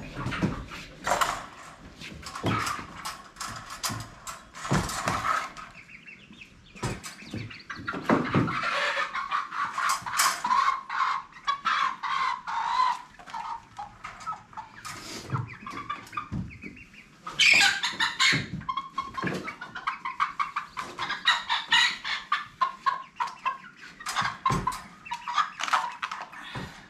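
Chickens clucking and squawking in quick runs of short calls inside a wire crate, with the loudest squawks a little past the middle.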